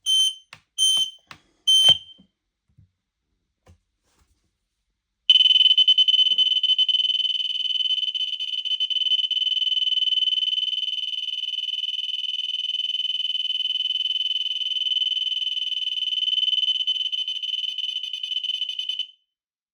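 Ei208 carbon monoxide alarm's sounder giving three short high beeps about a second apart. A few seconds later comes a long, high, finely fluttering tone of about fourteen seconds, then it cuts off. This is the alarm sending its stored data as sound to the AudioLink phone app.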